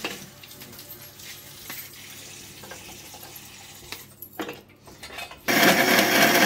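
Light clinks and taps as pieces of chocolate drop into a Thermomix's stainless-steel bowl. About five and a half seconds in, the Thermomix motor starts with a sudden loud, steady whirr as its blades chop the chocolate.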